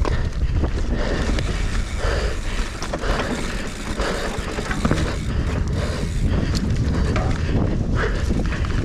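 Mountain bike descending a dirt trail at race pace: wind buffeting the action-camera microphone over tyre noise and a constant rattle of small knocks from the bike.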